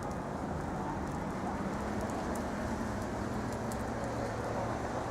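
City street traffic noise: a steady rumble with a low engine hum underneath and a few faint ticks.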